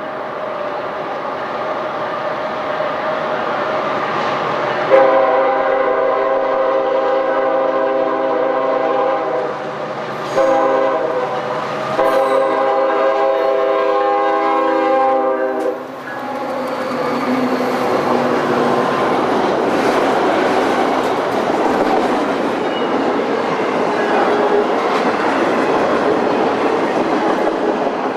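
Diesel freight locomotive's multi-chime air horn sounding three blasts, long, short, long, followed by the train running past with a steady rumble of engines and wheels on the rails.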